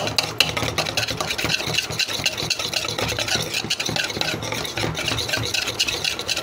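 Egg yolks mixed with salt, chilli powder, chilli sauce and soy sauce being beaten hard by hand in a bowl: a fast, steady clatter of the utensil against the bowl.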